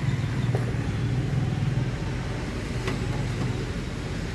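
Steady low mechanical rumble from running machinery, with a couple of faint clicks about half a second and three seconds in.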